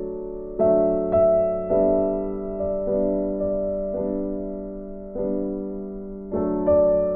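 Background piano music: gentle chords struck about once a second, each fading before the next.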